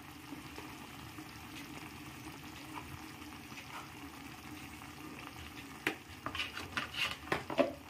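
Chicken pieces frying in oil in a kadai, a steady low sizzle, with turmeric, coriander and cumin powder just added. About six seconds in, a spatula starts knocking and scraping against the pan in a quick run of clicks.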